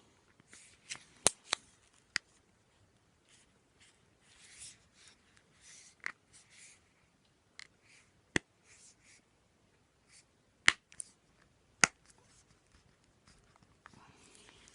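Sharp clicks and light scraping as an iPhone 6 Plus screen assembly is handled and pressed back into the phone's frame. The clicks come one at a time at irregular moments, several of them sharp and loud.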